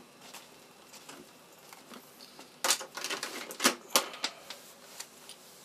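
A quick run of sharp clicks and clattering knocks, starting about two and a half seconds in and lasting about a second and a half, with faint scattered ticks around it.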